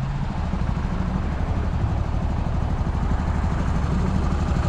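Motorcycle engine running steadily, a dense low pulsing with no break.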